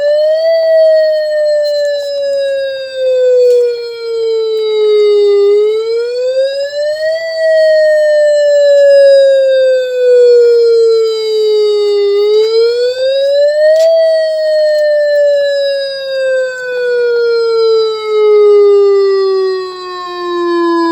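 A single speaker driver from a Whelen WPS 4008 electronic outdoor warning siren sounding a loud sweeping siren tone. Its pitch climbs over about a second and a half, then slides slowly down for about five seconds, and the cycle repeats three times.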